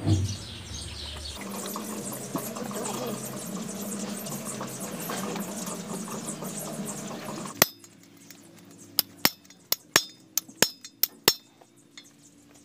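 A steady background noise, then after a sudden drop about seven and a half seconds in, a series of sharp metallic clinks, about eight in two seconds. They come from a metal tool knocking on the steel housing of an excavator swing motor as a new seal is fitted.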